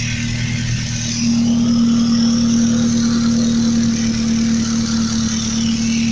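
Truck engine idling through a rusted-out exhaust with a gaping hole in it: a steady low drone that grows a little louder about a second in.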